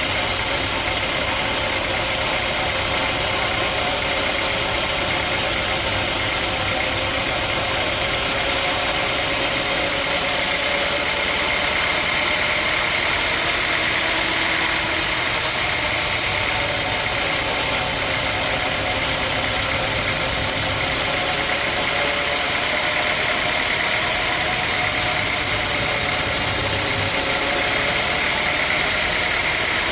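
Sawmill machinery running steadily, with a pitch that wavers slowly up and down.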